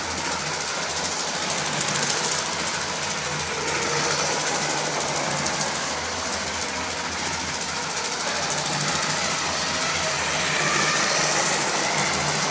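LEGO 7750 steam engine's 12-volt train motor running, with plastic wheels clattering over plastic track: a steady, dense rattle of rapid ticks over a low, even hum.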